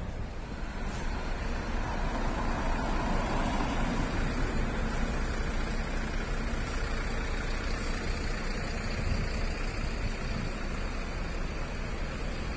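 Steady city road traffic: a continuous rumble of passing cars, vans and buses, growing louder for a few seconds about two seconds in as a vehicle goes by.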